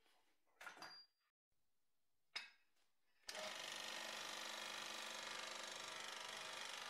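A shaving-brush trimming machine with a toothed cutter starts suddenly about halfway through and runs steadily with a fast, even rattle as a brush knot is cut to length. Before it there are a few soft handling rustles and one sharp click.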